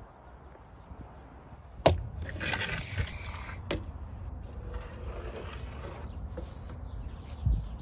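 Tape measure being worked along a plywood cabinet top: a sharp click about two seconds in, then the steel blade sliding and rattling with a few more clicks, and a dull knock near the end.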